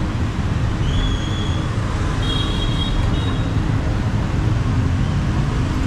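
Street traffic: a steady rumble of passing motorbikes and cars, with a few brief high-pitched tones about a second in and again a couple of seconds later.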